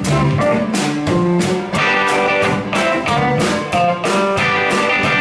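Live blues band playing: electric guitars over bass and drums with a steady beat.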